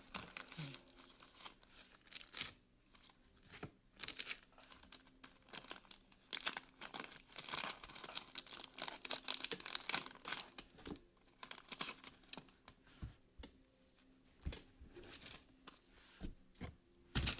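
Faint crinkling and tearing of thin plastic wrapping being handled, in short, irregular crackles.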